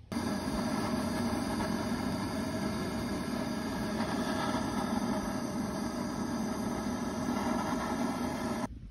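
Propane torch running steadily into a smoker's firebox to light the wood, a loud even roar with a fixed hum in it. It cuts in abruptly and stops abruptly near the end.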